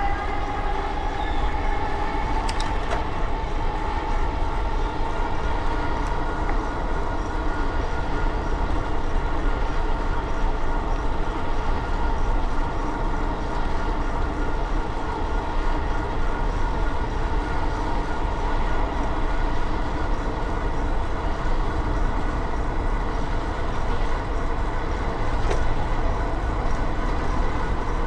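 Steady riding noise at speed: a heavy wind rumble on the microphone under a constant whine that climbs in pitch at the start and then holds steady.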